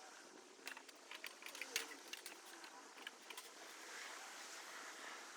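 Faint, scattered metal clicks and clinks of carport frame pieces being handled and fitted together, with a few sharper ticks bunched together in the middle.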